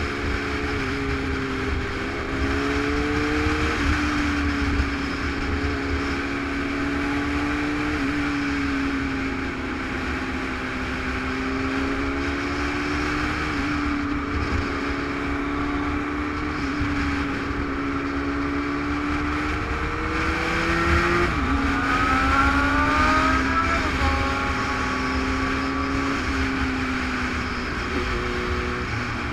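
Motorcycle engine running at road speed under the rush of wind on a helmet-mounted camera, its pitch stepping up and down with throttle and gear changes. About twenty seconds in it revs up in a rising whine, drops sharply at a shift, and climbs again.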